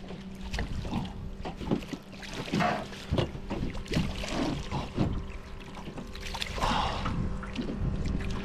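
Hooked striped bass thrashing and splashing at the surface as it is scooped into a landing net and lifted from the water, in a run of irregular splashes, over a steady low hum.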